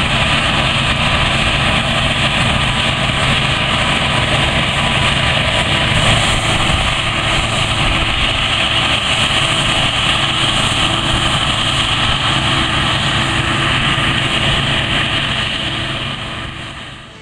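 Claas Lexion 460 combine harvester running steadily while harvesting grain: a constant engine drone under a dense mechanical hiss. It fades away over the last couple of seconds.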